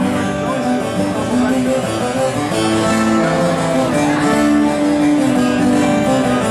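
Live band playing the opening of a song, led by a strummed acoustic guitar with other instruments.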